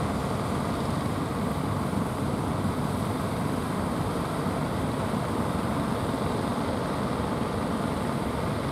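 Motors of outrigger fishing boats running hard through the surf, a steady rumble mixed with the wash of breaking waves.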